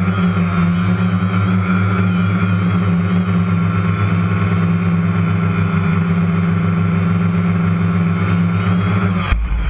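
Steady, loud motor hum holding an even pitch, from a small radio-controlled craft's electric motors or propellers. It breaks off abruptly near the end and gives way to a different sound with a falling pitch.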